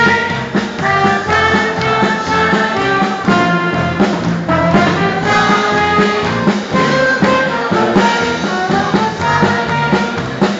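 Loud music with brass instruments, playing continuously.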